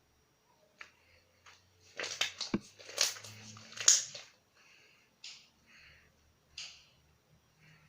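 Homemade slime being squeezed and worked by hand, making sticky clicks and pops, a dense cluster about two seconds in, then a few scattered ones.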